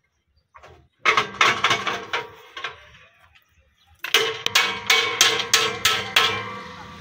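Hammer blows ringing on steel during a combine harvester repair. There are two runs of quick strikes, about three a second; the second run starts about four seconds in.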